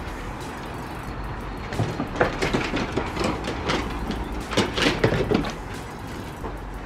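Siberian huskies play-fighting on a wooden deck: irregular scuffles and claw scrapes on the boards, busiest from about two seconds in until five and a half.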